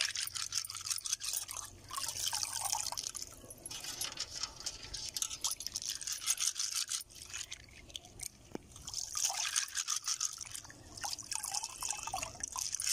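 Small freshwater snails rubbed together between the hands in a metal basin of water: water swishing and splashing, with many quick, irregular clicks of the shells rattling against each other. They are being scrubbed clean of the mud they feed in.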